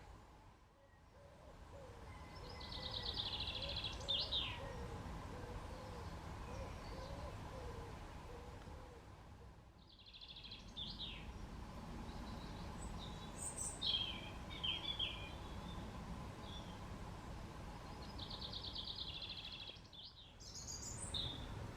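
A garden songbird singing several short phrases, each a fast trill of high notes ending in a few quick falling notes, over a steady low background hum.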